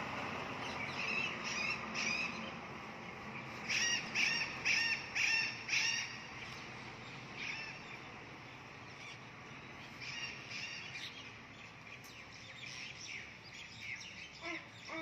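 Birds calling outdoors, with a quick run of about five sharp chirps about four seconds in and scattered calls after. In the first few seconds a low engine rumble from a passing truck sits under them and fades.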